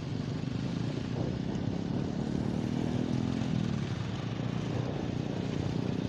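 Motorcycle engine running steadily at riding speed, heard from on the moving bike, with a steady rush of wind and road noise.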